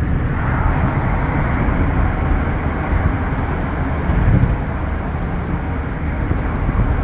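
A car driving along a city avenue, heard from inside: steady rumble of the engine and road, with tyre noise.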